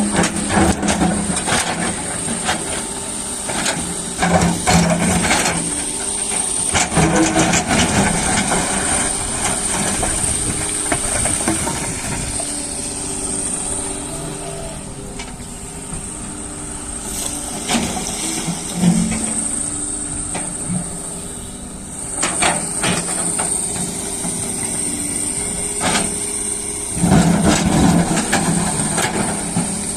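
Doosan excavator's diesel engine running under working load, rising and easing off several times, with a steady high hiss and scattered knocks and scrapes as the bucket digs soil.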